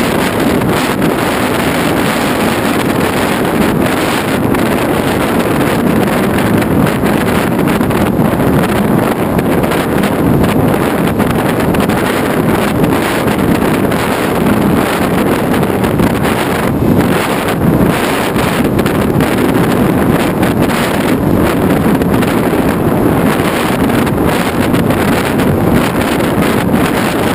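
Steady, loud wind rushing over a GoPro Hero2 camera mounted on the nose of a Skysurfer RC plane in flight, blended with the airframe's motor and propeller noise.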